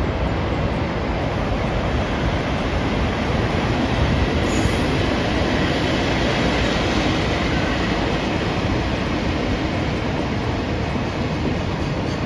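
A train running past, a steady rumble and rattle of wheels on the rails, a little louder midway through.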